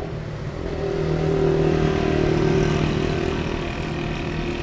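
Steady hum of a running engine, growing louder about a second in and easing off toward the end.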